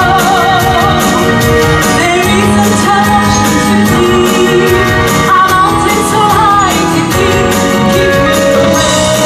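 Live stage musical number: a female lead singing an upbeat pop-style tune with a women's chorus, over band accompaniment with a steady beat.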